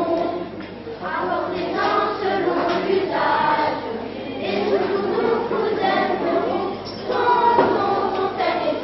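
Children's choir singing in French, several young voices together in phrases led by a conductor.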